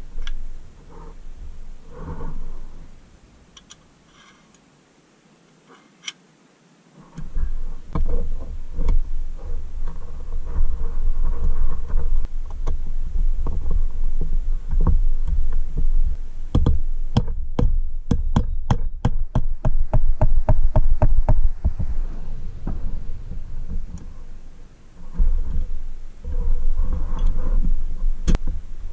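Handling knocks on a vintage Tonka forklift's metal axle and plastic wheel while the wheel is fitted. Midway comes an even run of quick light taps, about five a second for some five seconds, consistent with a small hammer tapping the axle.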